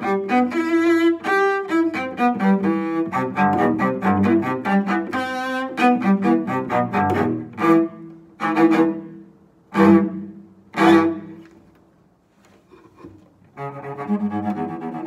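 Solo cello played with the bow: a run of quick notes, then four separate accented strokes that ring out and fade, a short pause, and the playing starts again near the end.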